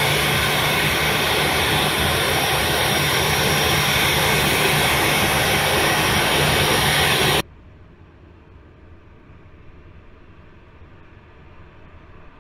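Boeing 737-800's CFM56-7B jet engines running at taxi power close by, a loud steady rush with a thin high whine. About seven seconds in it cuts off abruptly, leaving only a faint steady background.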